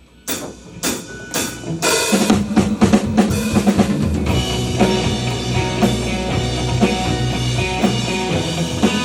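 Live rock band: a drum kit plays about four sharp accented hits, then the full band crashes in about two seconds in, with drums pounding over a steady bass line and sustained guitar tones, and plays on loudly.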